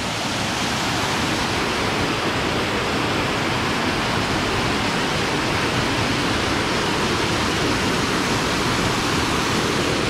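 Waterfall rushing steadily: a dense, unbroken sound of falling water with no change in level.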